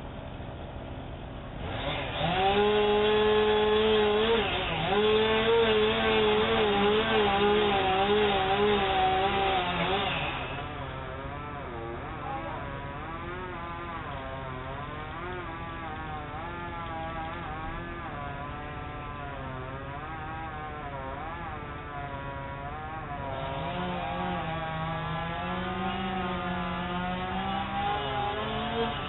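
Chainsaw running at high revs, its pitch wavering and dipping as it cuts, heard through a doorbell camera's muffled microphone. It starts loud about two seconds in, drops back to a quieter wavering drone around ten seconds, and grows louder again near the end.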